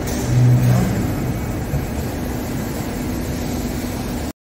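Mori Seiki MH-633 machining centre running inside its enclosure with coolant spraying: a steady mechanical noise with splashing hiss, and a low hum for about half a second near the start. It cuts off suddenly near the end.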